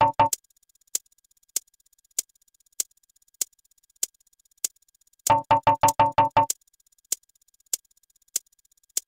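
Synthesized sound effects: a steady, clock-like tick about every 0.6 seconds, with a quick burst of about eight rapid, buzzy electronic beeps about five seconds in and the last few beeps of a similar burst at the very start.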